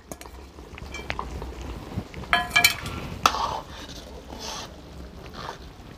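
Metal ladle stirring simmering kadhi in a metal wok: scattered light clinks and short scrapes against the pan, with a brief ringing clink about two and a half seconds in.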